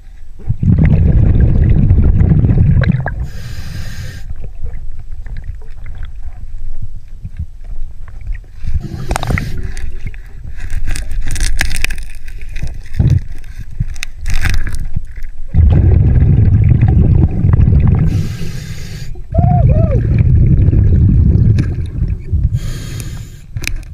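Scuba regulator breathing underwater: long bursts of exhaled bubbles alternating with short hissing inhalations. In the middle, a stretch of clicking and scraping as the diver handles things on the riverbed.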